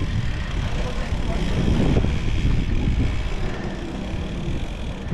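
Cyclocross bike riding over dirt: wind buffeting the camera's microphone over a steady rumble from the tyres and frame.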